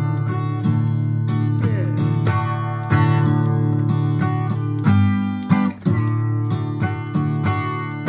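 Solo acoustic guitar strumming chords in an instrumental passage of a song, with a brief dip in level about five and a half seconds in.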